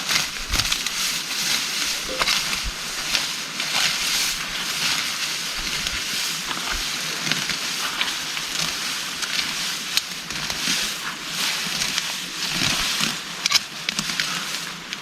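Heavy rain falling: a dense, steady hiss full of sharp ticks from individual drops striking.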